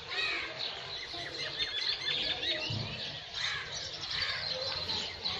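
Many small birds chirping, with short, quick calls overlapping one another.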